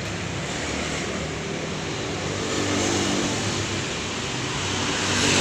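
A steady low engine hum mixed with street traffic noise, swelling a little near the end.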